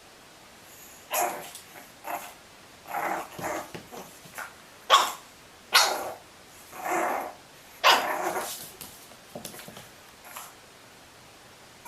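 A dog barking, a run of short barks at uneven intervals.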